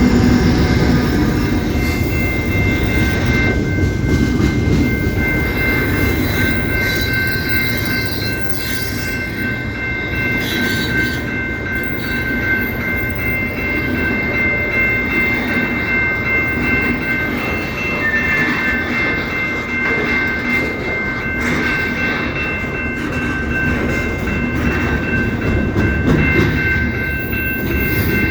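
CP Rail train rolling by with a continuous low rumble of the cars on the track. Several thin, steady, high-pitched tones ring over it throughout.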